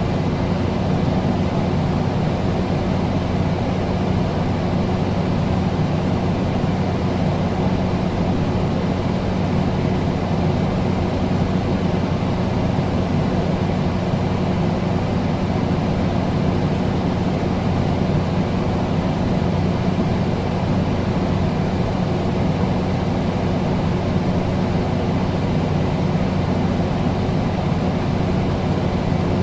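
Air conditioner running steadily: an even rush of airflow with a constant low hum.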